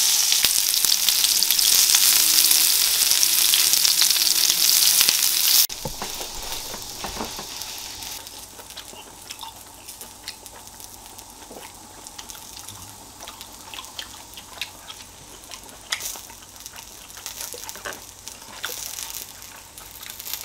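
Meat sizzling hard on the grill plate of a small tabletop charcoal-style grill, the hot plate spitting steadily. About five and a half seconds in the sizzle cuts off suddenly, and a much quieter stretch follows with light clicks and taps of chopsticks and tableware.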